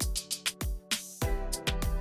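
Background music with a regular drum beat over sustained tones.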